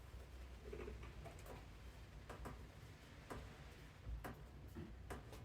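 Faint, unevenly spaced light clicks and taps, about one a second, from hands and tools working on the snowblower's gear-selector parts.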